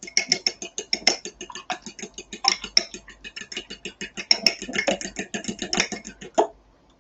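A raw egg being beaten with a metal spoon in a small ceramic bowl: rapid clinking of the spoon against the bowl, about seven strokes a second, which stops about six and a half seconds in.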